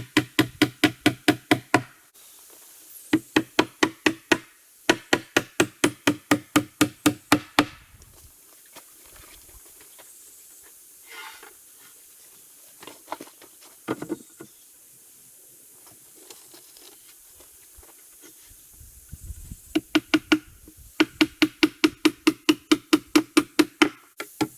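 Fast, even strokes of hand-tool work on rough-cut wooden boards, about six or seven a second with a ringing tone. They come in bursts of a few seconds, with a stretch of fainter scattered knocks in the middle.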